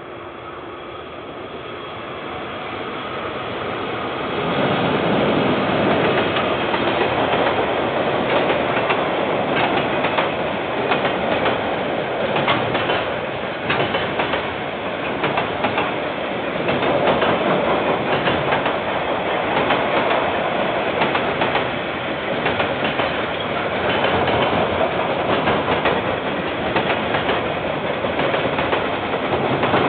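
KiwiRail freight train passing close by, its noise building over the first four seconds as it approaches, then a steady loud rumble of wagon wheels clattering over the rail joints.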